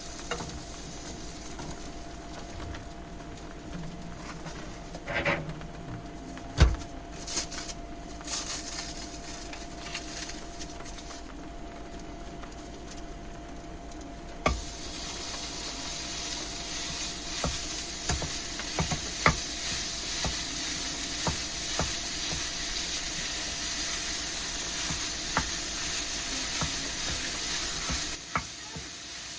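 Food hitting a hot frying pan about halfway in and sizzling steadily from then on, with small clicks and knocks of utensils and cookware, including one sharp knock early on.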